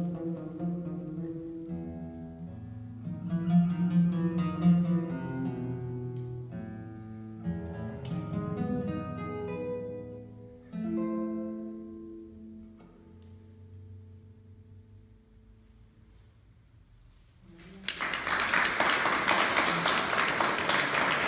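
Classical guitar played solo, plucked notes ringing out, with the final notes dying away about two-thirds through. Then an audience applauds, as loud as the playing.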